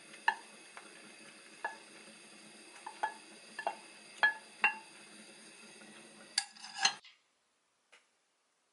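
A wooden spatula scrapes rice from a pan onto a ceramic plate, with about a dozen sharp, ringing clinks of utensil and pan against the plate. The sound stops abruptly about seven seconds in.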